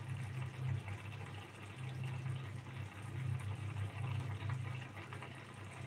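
Egg curry gravy simmering in a frying pan, bubbling and popping steadily, with a low hum underneath that swells and dips.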